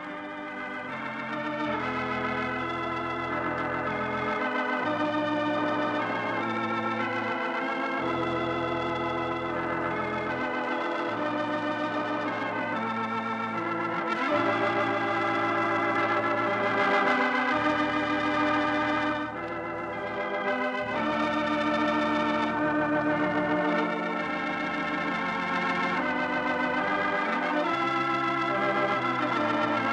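Organ music playing the program's closing theme: sustained chords over a bass line that changes note every couple of seconds, running on without a break.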